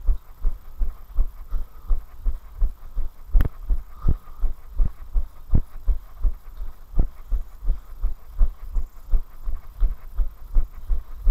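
A runner's footfalls on a paved path, a steady run of low thuds about three times a second, jolting the body-worn camera with each stride.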